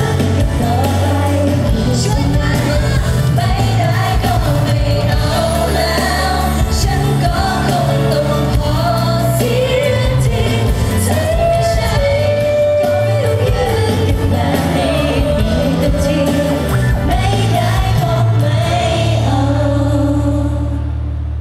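A woman singing a Thai pop song into a microphone, backed by a live band with electric guitar and drums, heard through the stage PA. The music eases down near the end as the song closes.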